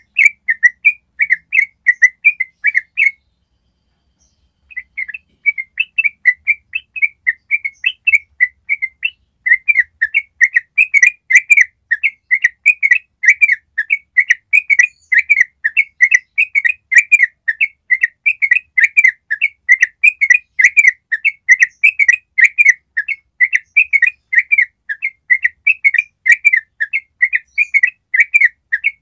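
Yellow-vented bulbul (trucuk) singing its long 'ropel' song: a fast run of short repeated notes, pausing briefly about three seconds in and then running on without a break.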